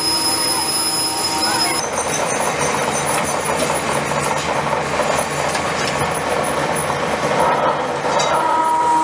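Pillar drill boring a hole through a steel flange. The motor and spindle run with a steady whine, then from about two seconds in the bit cuts into the steel with a rough, scratchy grinding. The plain whine returns near the end.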